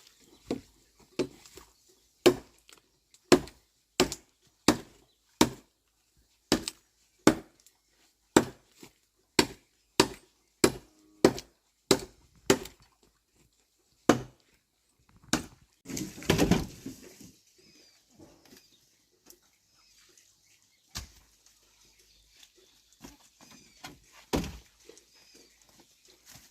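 Steady chopping with a blade, sharp strikes about one and a half a second for some twelve seconds, then two single strikes and a longer rattling clatter about sixteen seconds in.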